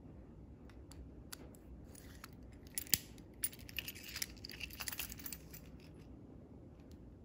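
Small plastic and metal clicks as the mechanical key blade is slid back into a Hyundai smart key fob, with metal keys jangling on the key ring. One sharp click comes about three seconds in, followed by a couple of seconds of clicking and rattling.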